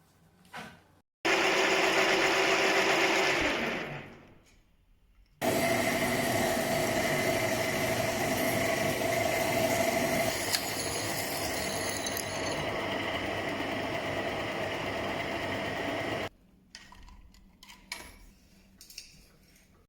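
An electric power tool running at full speed in two stretches. The first lasts about two seconds and then winds down with a falling pitch. The second is steady for about ten seconds and cuts off suddenly.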